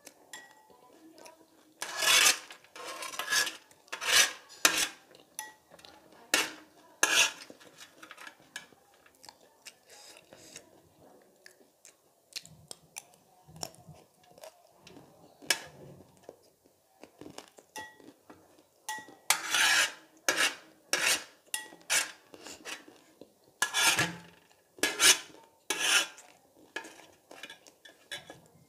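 A metal spoon scraping and clinking against a metal baking tray in irregular clusters of strokes, scooping up dry, crumbly noodle mix.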